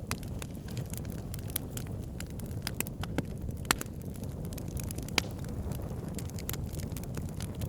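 Campfire burning: a steady low rumble of flames with irregular sharp crackles and pops of burning wood, a few louder pops standing out, about halfway through.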